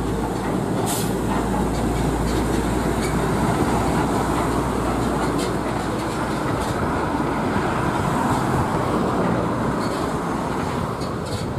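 Heavy loaded Mitsubishi Fuso tractor-trailer driving past on a toll road: a steady rumble of its diesel engine and tyres on the road surface. A deep low drone drops away about halfway through.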